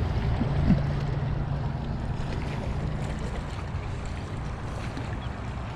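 Steady low rumble of wind on the microphone with water moving at the shore.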